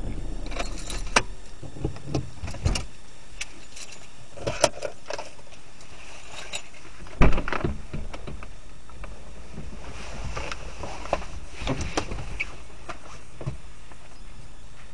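Inside a stationary car: a steady low rumble with irregular light taps and knocks, and one louder thump about seven seconds in.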